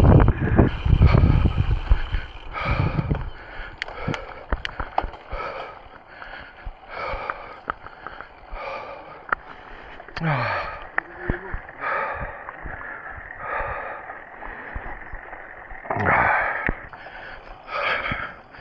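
A cyclist breathing hard from the effort of a steep climb, a heavy breath in or out about once a second. Wind buffets the microphone for the first few seconds, and there are scattered light clicks and rattles.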